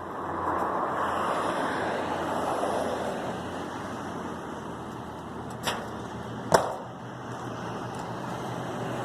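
A vehicle passing, a hiss of road noise that swells over the first second and fades away, then two sharp knocks a little under a second apart, the second louder.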